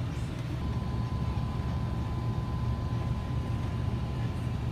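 Steady low hum of refrigerated display cases in a grocery store, with a thin, high, steady whine coming in about half a second in.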